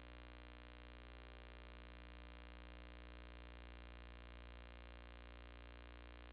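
Near silence: a faint, steady electrical hum with many overtones, unchanging throughout.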